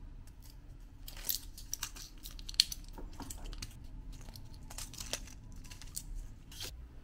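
Foil blister pack crinkling, with sharp clicks and crackles as capsules are pressed out through the foil; the loudest click comes about two and a half seconds in.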